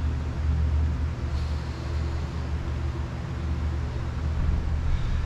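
Steady low rumble with a faint hum, from a fume hood's extraction fan running.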